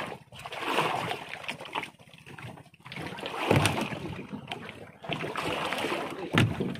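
Sea water sloshing and splashing against the hull of a small wooden boat moored alongside a larger boat, in uneven surges, with two louder thumps, one about halfway through and one near the end.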